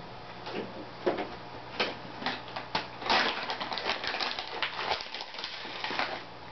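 Irregular light clicks and patter as Hikari cichlid mini pellets are fed into the aquarium, busiest about halfway through and stopping near the end, over the steady low hum of the tank's equipment.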